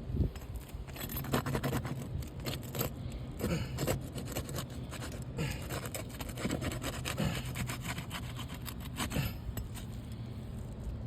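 Irregular hand-work noises: scraping and rubbing with many small clicks and knocks, over a steady low hum.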